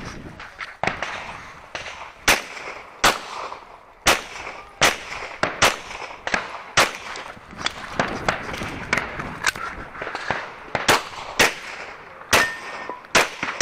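Glock 17 Gen 4 9mm pistol firing a long string of shots at irregular spacing, sometimes two close together, sometimes a second or more apart, each crack with a short echo and fainter cracks between.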